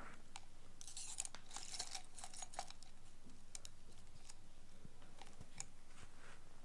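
Ear-cleaning tool scraping and picking inside an ear canal, heard close up: a dense spell of crackling scratches about a second in, then scattered single clicks.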